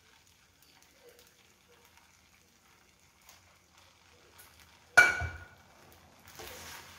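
Faint scraping as bechamel sauce is scraped out of a metal saucepan with a silicone spatula, then about five seconds in a single sharp metallic clank that rings briefly, the saucepan being set down. Near the end a soft, steady swishing as the spatula spreads the sauce over the pasta in the pan.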